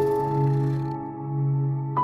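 Soft background music: sustained, bell-like notes over a steady bass, a new note struck at the start and another near the end.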